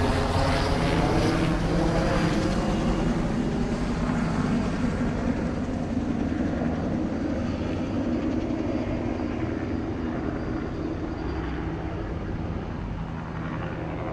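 A steady engine drone with a low rumble, slowly fading away.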